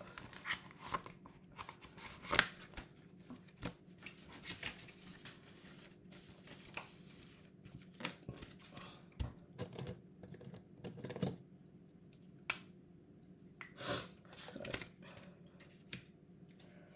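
Irregular rustling and light taps of paper banknotes and a plastic-sleeved cash envelope being handled, as notes are put into a budgeting envelope.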